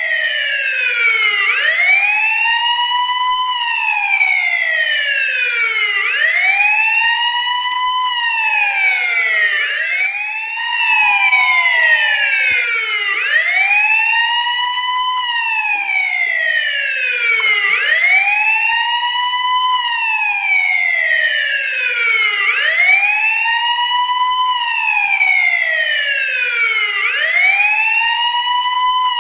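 Police siren wailing: one tone sweeps up over about two seconds and slides back down a little more slowly, repeating roughly every four and a half seconds, with one cycle cut short about ten seconds in.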